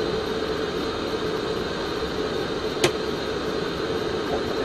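Steady airflow and engine noise inside an airliner cockpit on approach, with a constant hum, and one short sharp click about three seconds in.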